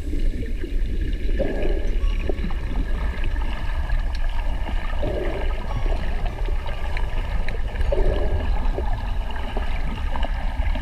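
Underwater ambience picked up by a submerged camera: a steady low rumble with irregular gurgling and bubbling, and louder gurgles about a second and a half in, at about five seconds and at about eight seconds.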